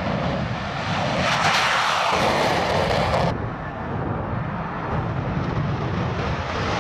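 Jet fighters' twin turbofan engines running in afterburner on takeoff, a loud continuous roar. About three seconds in the sound changes abruptly to a duller roar as the next jet's takeoff roll begins.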